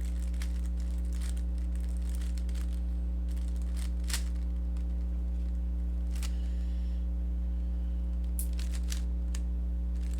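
Rubik's cube being turned, plastic layers giving irregular faint clicks and clacks as algorithms are executed, over a steady electrical hum.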